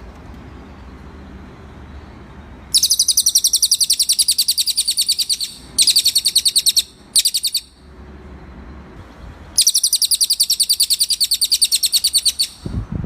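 Cililin bird singing: fast, very high-pitched trills of about ten notes a second. They come in four bursts, a long one about three seconds in, two short ones, and another long one near the end, over a faint steady low hum.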